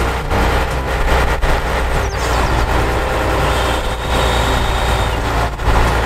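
Heavy tow truck's diesel engine running steadily with a deep, even rumble.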